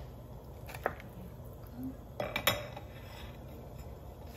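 Metal kitchen tongs knocking and clinking against a cooking pot as a beef shank is set into the water: one sharp click about a second in, then a louder cluster of clinks around the middle.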